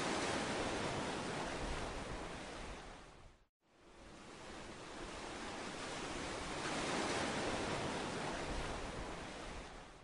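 Steady rushing noise that swells and eases, dropping out completely for a moment about three and a half seconds in.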